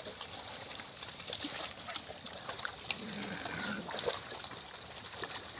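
A herd of pigs wading and rooting in a flooded, muddy paddy: water splashing and sloshing, with many small scattered clicks.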